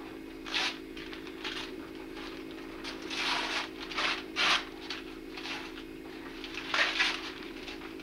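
Wrapping paper rustling and tearing in a series of short bursts as Christmas presents are unwrapped by hand, over a steady low hum.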